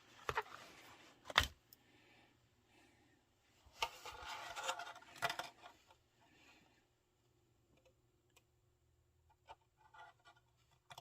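Quiet handling noises as a window decal is pressed onto a small plastic RC truck body: a sharp click about a second and a half in, a few seconds of rustling and scraping around the middle, then a few faint ticks.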